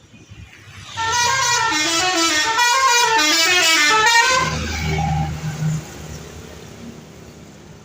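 Indonesian 'telolet' multi-tone bus horn playing a quick stepping melody for about three seconds, starting about a second in. A bus engine runs low under and after the tune, then fades.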